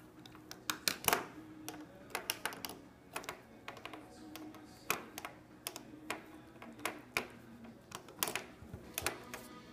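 A pen clicking and clattering against a wooden desktop as a kitten bats and chews at it: irregular sharp taps, several a second at times, in uneven clusters.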